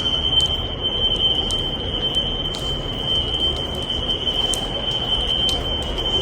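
Building fire alarm sounders giving a steady high-pitched tone, several units sounding out of sync, with scattered faint clicks over a low rumble. The alarm is a nuisance activation set off by construction dust.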